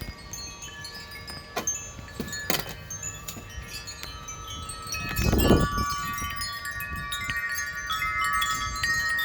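Wind chimes ringing in strong wind, many notes struck and ringing over one another, with a few sharp clicks early on. A brief loud low rush comes about five seconds in, and then the chimes ring on more fully.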